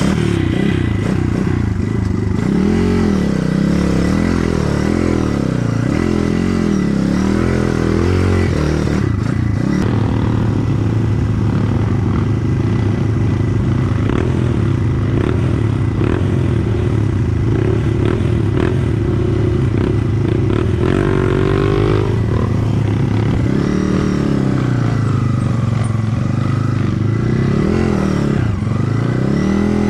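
Dirt bike engine running and being revved up and down over and over as the bike is worked along a rutted trail, with a steadier stretch in the middle.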